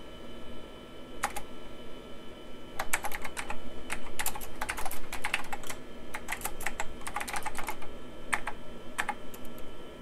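Typing on a vintage Nan Tan Computing keyboard with mechanical key switches. A single keystroke comes about a second in, then quick runs of keystrokes from about three seconds in until shortly before the end.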